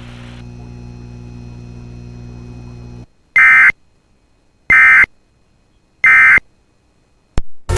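Steady low electrical hum, cutting out about three seconds in. Then the Emergency Alert System End of Message: three short bursts of screeching SAME digital data tones about a second apart, signalling that the alert is over. A click, and a new loud sound starts right at the end.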